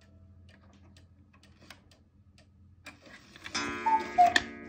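Cuckoo clock with a one-day Regula movement ticking softly. About three and a half seconds in, its music box starts to play, and the cuckoo calls once, a higher then a lower note, with sharp clicks.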